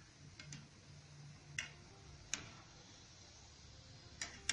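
Steel slotted frying spoon clinking against a kadai a handful of times at irregular spacing while gulab jamun are turned in hot oil, over a faint, even frying sizzle.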